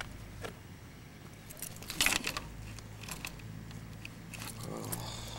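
Hands handling a car's interior: faint clicks and rustles over a steady low hum, with a short burst of clicking and rustling about two seconds in.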